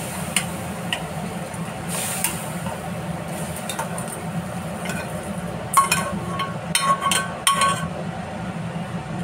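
Metal ladle scraping and knocking boiled kidney beans out of a pressure cooker into a pan of masala gravy: scattered light clinks, then a run of louder ringing metal clanks from about six to eight seconds in, over a steady low hum.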